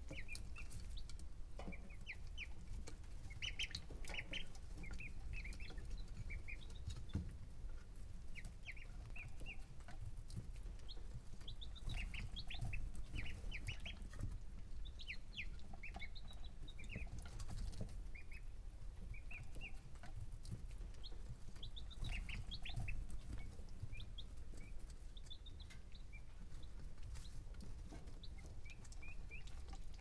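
Baby chicks and other young poultry peeping: scattered short, high chirps in small clusters, over a low steady rumble.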